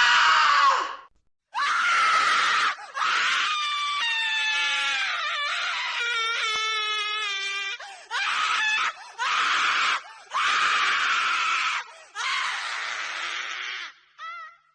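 A run of separate human screams, one after another, each from a different sound-effect recording: short shrieks broken by brief pauses, with one long wavering scream of several seconds in the middle.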